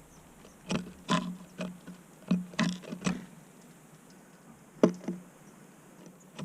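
Small birds at a wooden or plastic feeder: irregular sharp taps and knocks, each with a brief low ring. A quick run of about seven comes in the first three seconds, then two more about five seconds in.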